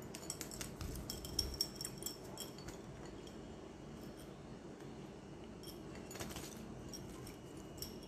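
A pet parakeet bathing in a shallow ceramic bowl of water: quick light splashes and droplet spatter with small clicks against the bowl as it flaps and shakes. The splashing is busiest in the first three seconds and comes again briefly about six seconds in.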